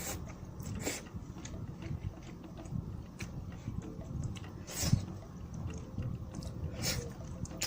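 Close-miked eating of malatang: steady chewing with a few sharp wet mouth noises, the loudest about five seconds in.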